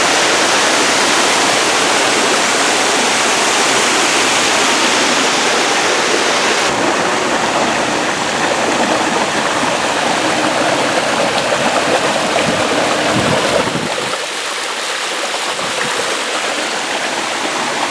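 Steady rush of water pouring down an artificial waterfall, a loud even splashing hiss; its sound shifts about seven seconds in and becomes a little quieter about fourteen seconds in.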